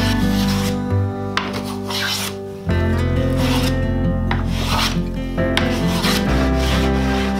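Hand plane shaving the edge of a poplar board in several strokes, each a rasping hiss about a second long, over background music.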